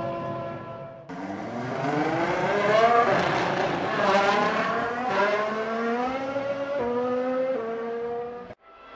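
Go-kart engine running at high revs, its pitch climbing steadily as it accelerates, falling back about four seconds in, then climbing again with a few small drops in pitch. The sound breaks off abruptly about a second in and again near the end.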